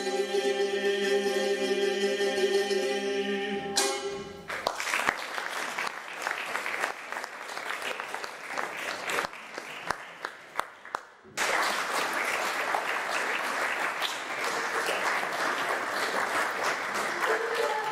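Live folk music ends on a long held note about four seconds in, and an audience applauds. The clapping fades, comes back suddenly loud in the middle, and the next tune starts right at the end.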